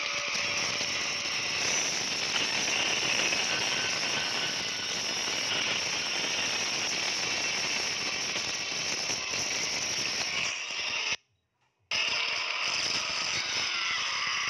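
Horror film soundtrack: a dense, continuous noisy sound-effects texture with no speech. It drops out completely for under a second about eleven seconds in.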